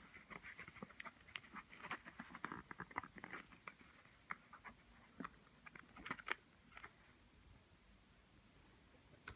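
Faint, irregular clicks and crackles, dense for the first few seconds, a few more around five and six seconds in, then near silence.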